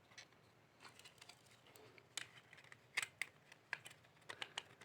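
Faint, scattered small plastic clicks and taps of a TV remote control's casing and parts being fitted back together by hand, with a few sharper clicks around the middle and a quick run of them near the end.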